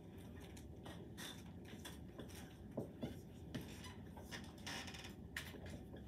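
Dry-erase marker writing on a whiteboard in short strokes, with a few faint knocks about halfway through, over quiet classroom room tone.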